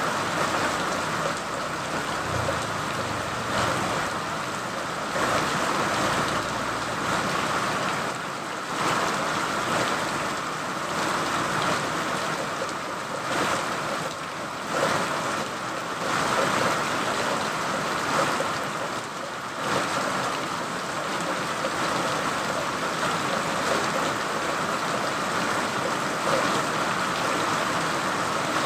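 Steady rain falling, an even hiss with small swells in loudness and no breaks.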